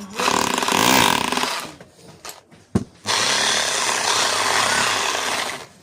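24 mm rotary hammer drill running in two bursts: a short run of about a second and a half, then after a brief pause and a single clink, a longer steady run of about two and a half seconds.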